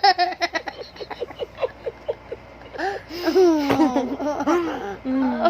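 A young child laughing: a run of quick laughing pulses that trails off over the first two seconds, then a second bout of laughter with rising and falling pitch about three seconds in.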